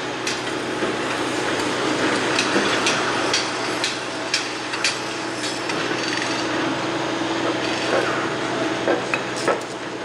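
Construction-site noise: irregular sharp knocks, a dozen or so, some in quick pairs, over a steady machine drone.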